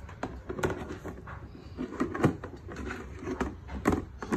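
Molded plastic car-trunk tool box being handled: irregular clicks, knocks and rustling as it is turned over and its lid tab is gripped, with louder knocks about two seconds in and near the end.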